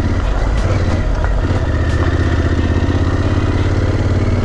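Yamaha Super Tenere's parallel-twin engine running steadily under way as the adventure bike rides along a gravel road.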